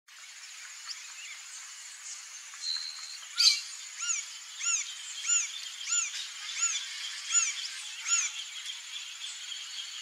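Green-barred woodpecker giving a slow series of seven ringing call notes, each rising and falling in pitch, about one and a half a second. A single sharp knock comes just before the series and is the loudest sound.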